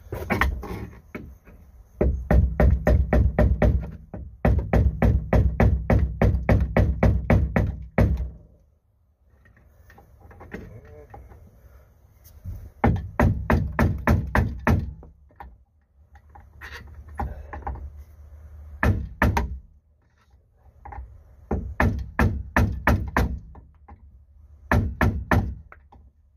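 Hammer blows on the steel shaft of an old boat steering helm: quick runs of sharp metal strikes, several a second, in bursts with short pauses. The blows are meant to drive out a key rusted into the shaft's keyway that is jamming the helm.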